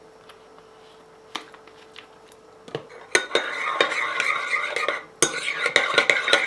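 A utensil stirring a thick mayonnaise-and-yogurt dip in a bowl, scraping and clinking against the bowl. It starts about halfway in after a few light clicks, and there is a short pause shortly before the end.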